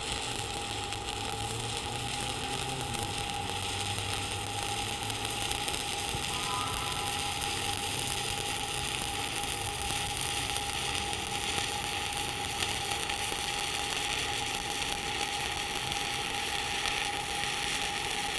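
Shielded metal arc (stick) welding with a 7018 electrode on a steel fillet joint: the arc burns with a steady crackling sizzle, like bacon frying, and never breaks.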